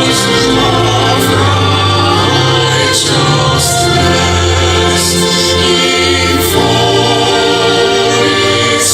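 Youth choir singing a gospel song, many voices holding steady notes together in several parts.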